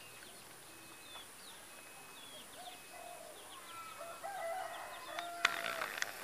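Small birds chirping outdoors, with a rooster crowing louder in the second half. A single sharp click about five and a half seconds in is the loudest sound.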